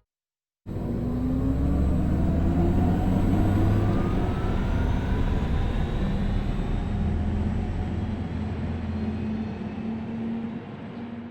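Audi e-tron GT's synthetic electric driving sound, a layered hum whose tones rise steadily in pitch as the car accelerates, over road and tyre noise. It starts after a brief silence.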